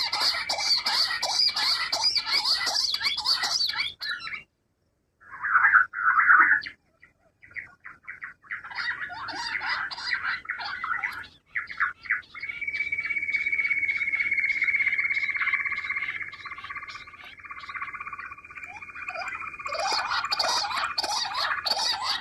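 Quails calling: dense, rapid chirping and twittering, broken by a sudden short silence about four seconds in, then a loud burst of calls and a long steady high note through much of the second half.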